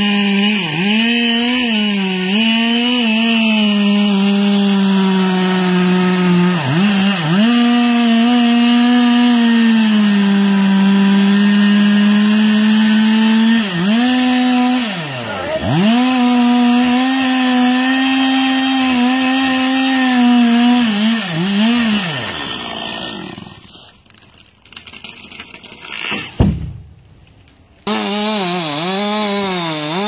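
Two-stroke chainsaw running at high revs while cutting into a tree trunk, its pitch dipping briefly several times under load. About three-quarters of the way through it dies away and a sharp knock sounds, then a chainsaw is running again near the end.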